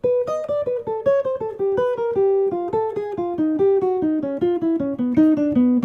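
Semi-hollow electric guitar playing a fast picked single-note jazz line of about five or six notes a second. It is a four-note augmented-scale pattern cycled downward in whole steps, and it comes to rest on a held B flat near the end.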